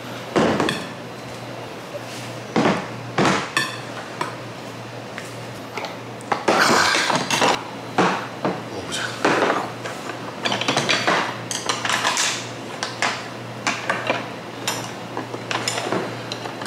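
Tableware handled on a table: ceramic bowls knocking as they are set down, then a string of clinks and scrapes from a small frying pan and a wooden spoon against the bowls.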